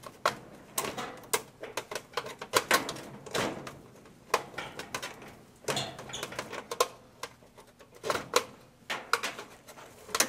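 Control knobs and parts being pulled and worked loose from a clothes dryer's control console: irregular sharp clicks and knocks of plastic and sheet metal.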